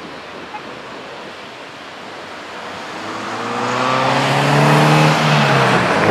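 Snowbirds CT-114 Tutor jet flying past: a rush of jet noise swells up from about halfway through, and its engine tone drops in pitch as it goes by near the end.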